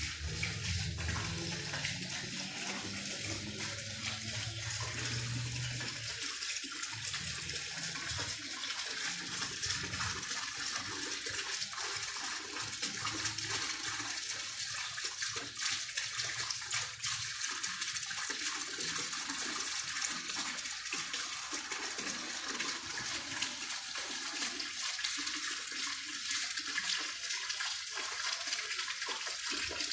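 Night chorus of crickets and cicadas: a dense, steady, high-pitched trilling hiss, with some low rumble of breeze during the first ten seconds or so.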